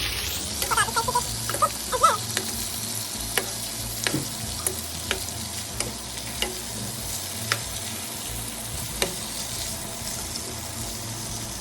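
Marinated fish sizzling in hot mustard oil as the pieces are turned in the pot with a spatula: a steady sizzle, with some scraping in the first couple of seconds and scattered sharp clicks after that.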